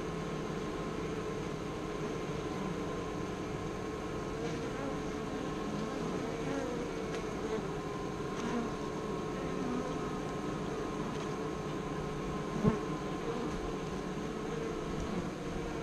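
Honeybees buzzing close up at the hive entrance: a steady drone with single bees flying near and away. One brief sharp knock about three-quarters of the way through.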